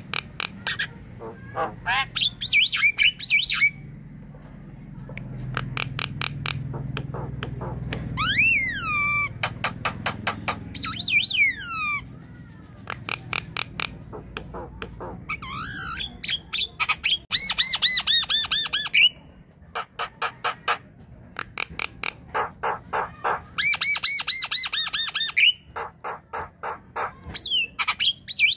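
Javan myna singing in full, lively song: bursts of fast clicking chatter mixed with whistled glides and harsh, buzzy notes, broken by short pauses.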